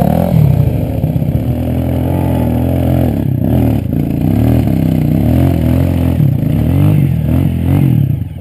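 Off-road motorcycle engine revving hard and unevenly, the pitch rising and falling again and again, as the bike struggles up a steep, loose dirt climb. The engine drops off briefly near the end.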